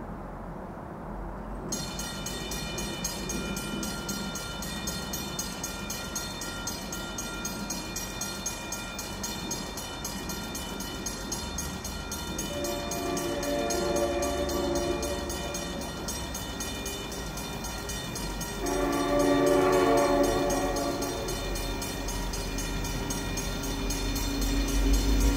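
Horn of an approaching EMD GP40-3H diesel locomotive sounding two long blasts, the second louder. Under it a grade-crossing bell rings rapidly, starting about two seconds in.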